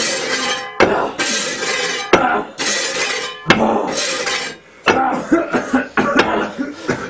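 Metal tools knocking and scraping against a wall being broken through: sharp clinking strikes about every second, with rough scraping between them.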